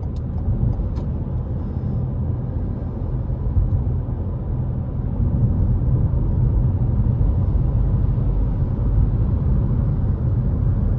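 Steady low rumble of a car being driven, heard from inside the cabin: road and tyre noise with the engine underneath, growing a little louder about halfway as the car picks up speed.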